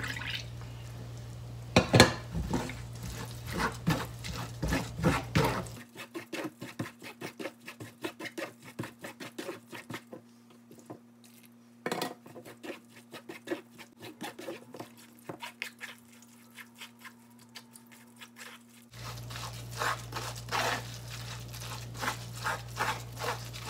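Wooden paddle mashing and scraping wet cooked azuki beans against a stainless steel mesh strainer in a metal bowl: quick repeated strokes with a couple of louder knocks of wood on metal, pressing the bean insides out through the mesh.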